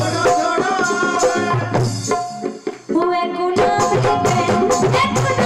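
Live devotional bhajan music with tabla drumming under held melodic notes. The music drops away briefly about two and a half seconds in and comes straight back.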